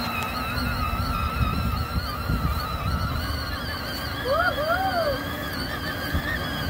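Battery-powered ride-on toy ATV driving over grass: the electric motors and gearboxes whine steadily, wavering in pitch, over a low rumble of the plastic wheels on the lawn. About four and a half seconds in come two short rising-and-falling chirps.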